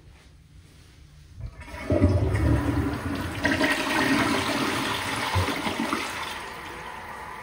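Toto Dalton toilet with a Drake tank flushing: a short click about a second and a half in as the flush starts, then a loud rush of water through the bowl. After about six seconds it eases to a steady, quieter hiss of running water.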